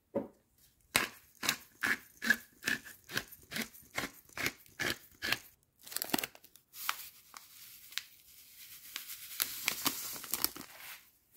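Hand-twisted salt and pepper grinder crunching through its contents in about a dozen turns, two or three a second. Then a plastic sachet is crinkled and torn open, and granules from it pour onto raw chicken pieces in a plastic bowl, a hiss that swells and stops near the end.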